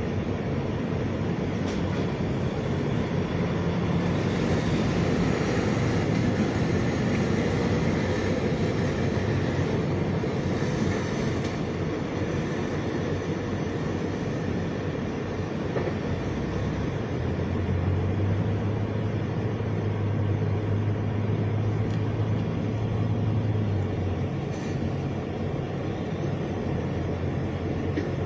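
Steady rumble of motor vehicle engines and traffic. A low engine hum grows stronger for several seconds about two-thirds of the way through.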